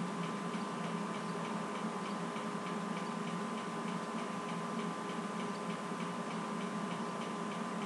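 Steady background hum and hiss with faint, regular ticking.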